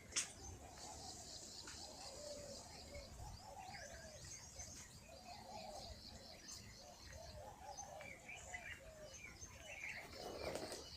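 Birds chirping and calling, many short overlapping chirps, with one sharp click about a quarter second in.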